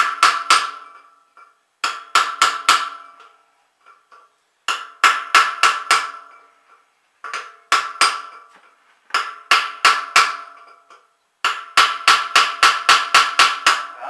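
Hammer tapping a steel punch on a concrete mixer's gear shaft to unseat a large circlip. The blows come in six quick runs of four to ten, each with a metallic ring, and the last run is the longest.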